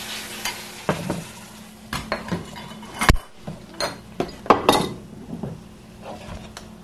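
Hot pan of chicken sizzling after white wine has gone in, the hiss fading over the first second, with scattered clinks and knocks of a utensil against the pan; one sharp knock comes about three seconds in.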